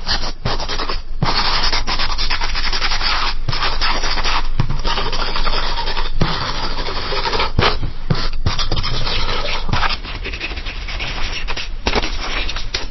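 Pencil writing on paper: a graphite point scratching in quick strokes, broken by brief lifts of the pencil. About ten seconds in, a second, slightly quieter writing take begins.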